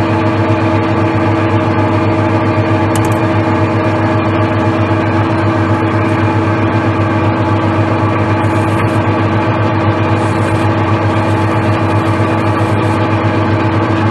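Metal lathe running with a steady, unchanging hum while it machines a steel wheel nut, a countersink bit in the tailstock chuck cutting its face.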